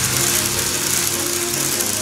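TOMIX N-gauge 485 series model train running along the track: a steady, fast rattle of wheels on the rails with the low hum of the motor car.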